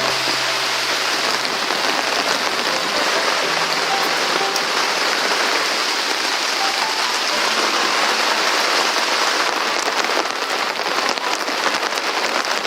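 Heavy downpour: a steady, dense hiss of rain falling.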